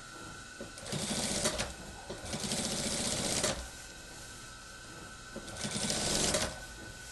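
Industrial sewing machine stitching a cotton shirt hem in three short runs, each about a second long, starting and stopping as the fabric is fed by hand. A faint steady high hum comes from the machine between runs.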